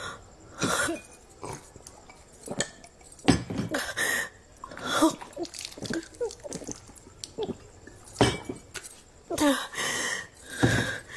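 A woman coughing and gasping in a string of short bursts, with gulps as she drinks a glass of water, in a stunned reaction to shocking news.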